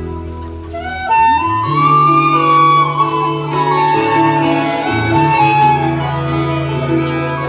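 Live band music played over a concert PA, heard from within the crowd: steady bass and chords, with a lead melody that comes in about a second in and slides up and down in pitch.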